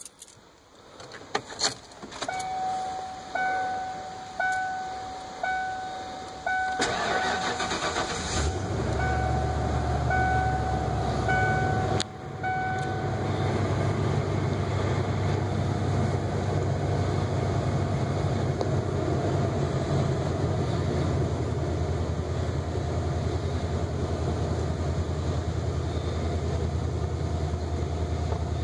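A few key clicks, then a dashboard warning chime dinging about once a second while the Ford E-150 van's 351 Windsor V8 cranks for about a second and a half and starts. The V8 then settles into a steady idle, and the chime stops a few seconds after it catches.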